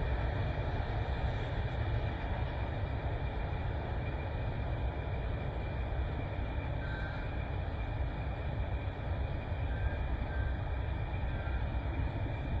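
Heavy diesel engine of a BharatBenz multi-axle tipper truck running steadily at low revs as the truck creeps forward, a continuous low rumble.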